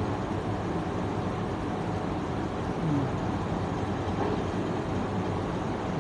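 Steady hum and whir of ceiling fans and wall-mounted air conditioners.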